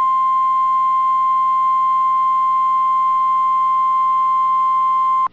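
NOAA Weather Radio warning alarm tone: a single steady, loud 1050 Hz tone that cuts off suddenly near the end. It signals that a warning message is about to be read.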